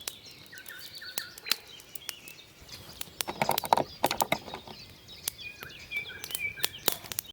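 Small birds singing and chirping, with scattered sharp clicks and a brief rustle about three and a half seconds in.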